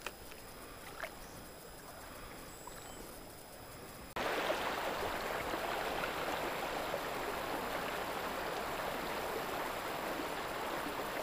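Faint quiet with a couple of small clicks, then about four seconds in a steady rushing of creek water starts abruptly and holds evenly.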